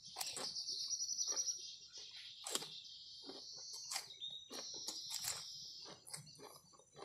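A high, steady chirring of birds and insects that fades out about five and a half seconds in, over short wet clicks and smacks of a man chewing food eaten by hand.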